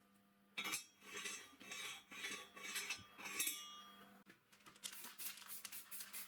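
Metal scraping in repeated strokes, about one and a half a second, turning about three seconds later into a faster run of short rasping strokes, roughly five a second.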